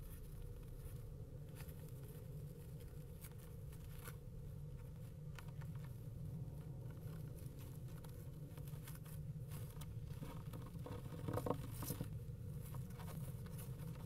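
Faint scratching, tapping and rustling, as of kestrels shifting about on the floor of a nest box, over a steady low hum. A short, louder sound with a tone to it comes about eleven and a half seconds in.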